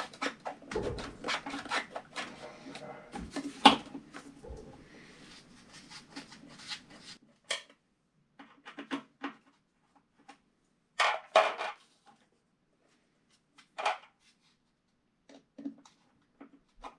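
Clicks, scrapes and knocks of a water heater's vent blower assembly being shifted on the tank top while its mounting screws are lined up and started by hand. Dense clatter for the first seven seconds or so, then scattered single clicks and knocks.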